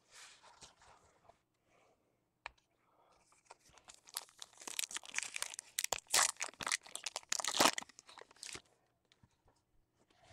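A foil trading-card pack being torn open and its wrapper crinkled. Faint rustling at first, then a run of crackly tearing and crumpling that starts about three seconds in and lasts some five seconds.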